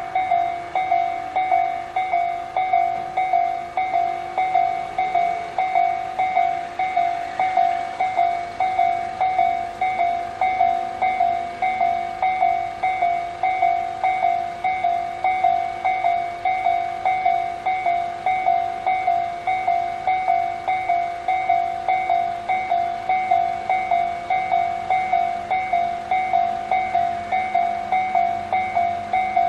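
Japanese railway level crossing alarm of the electronic 'pon-pon' type (Tojo-line style, slow variant) sounding steadily: a repeated struck-bell tone at about two strikes a second, each one dying away before the next.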